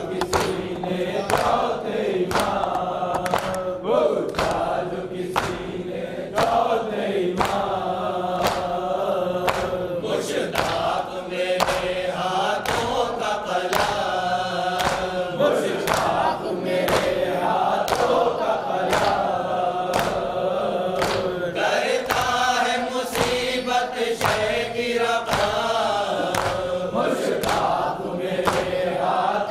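Group of men chanting a nauha, a mourning lament, in unison behind a lead voice on a microphone, with sharp rhythmic strokes of hands on chests (matam) a little over once a second.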